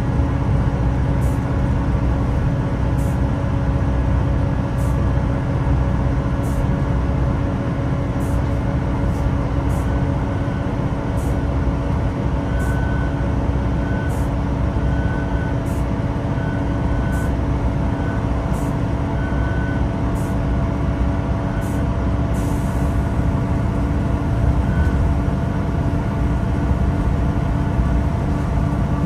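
A Class 166 Turbo diesel multiple unit running, heard from inside the carriage: the underfloor Perkins diesel and transmission give a steady drone. Light ticks come about every one and a half to two seconds, and there is a brief hiss of air a little over twenty seconds in.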